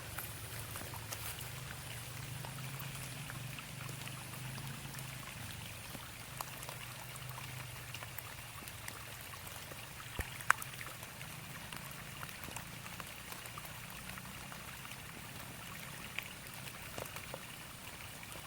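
Water flowing and pouring steadily through a full ditch, with scattered small splashes and one sharp click about ten seconds in.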